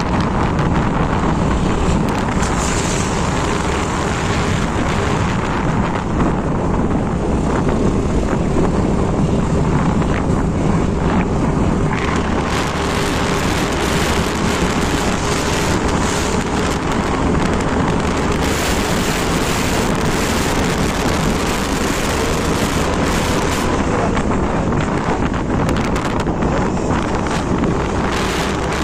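Wind rushing over the microphone of a moving motor scooter, over the steady hum of its engine and road noise. The wind grows gustier about halfway through.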